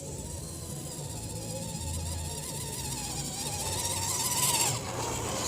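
Axial SCX10 Deadbolt RC rock crawler's electric motor and gears whining as it climbs a hill at a slow crawl, the pitch wavering with the load and the sound growing louder, then the pitch drops away about four and a half seconds in.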